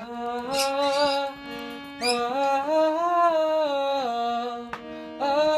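Harmonium playing held notes and chords, the pitches shifting every second or so, with a couple of brief high squeaks over the top.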